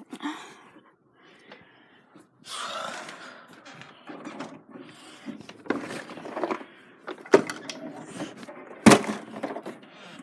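Rustling and bumping from household items being handled and put away, with two sharp knocks, the louder one about nine seconds in.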